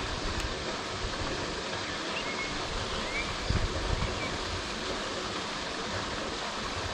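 Steady rain falling on open canal water, an even hiss, with a few low thumps about halfway through.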